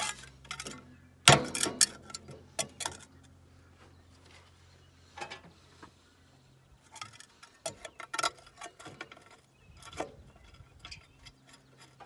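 Hand ratchet clicking on the bolts of a tractor hydraulic remote valve being bolted down, in two spells of quick ticks with a few sharper metal knocks, the loudest about a second in.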